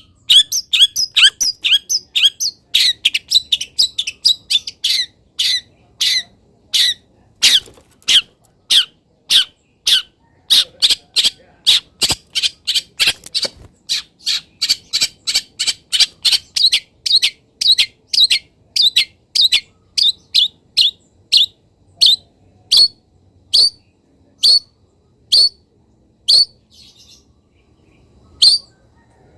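Long-tailed shrike singing: a quick chattering run of short high notes, then a steady string of sharp calls about two a second that slows to roughly one a second near the end.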